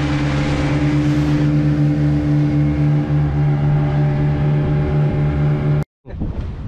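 Boat engine running at a steady speed, a constant low hum. It cuts off abruptly near the end.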